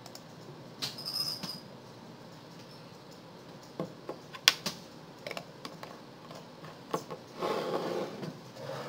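Scattered clicks and taps of computer keyboards and mice in a room, with a short muffled noise near the end.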